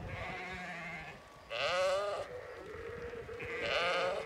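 Flock of sheep bleating as they are driven along, with several overlapping calls; two loud, wavering bleats stand out about one and a half and three and a half seconds in.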